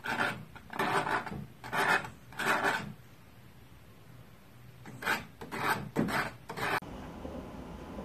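Paintbrush scraping across a canvas in short strokes: four in quick succession, a pause of about two seconds, then four more.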